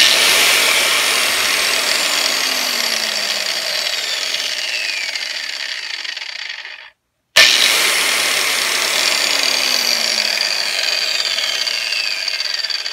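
Craftsman 4-1/2-inch, 7.5-amp angle grinder run free with no load, twice. Each time it starts abruptly with a loud whir, then winds down slowly with a falling whine over about six seconds. The owner says this long wind-down may point to good bearings.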